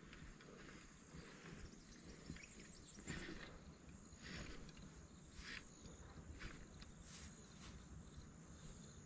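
Near silence: faint outdoor ambience, with a few soft, brief noises about three, four and a half, five and a half and seven seconds in.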